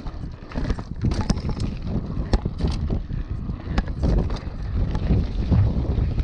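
Wind buffeting the microphone during a downhill mountain-bike ride over rough ground, with the bike clattering and knocking from many sharp impacts.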